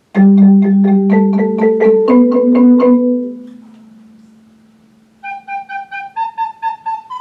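Orff classroom xylophones, a bass xylophone among them, struck together with mallets: four even strokes on each of three notes stepping up from G, then left to ring out. About five seconds in, a soprano recorder plays the same figure, four tongued notes on each of three rising notes.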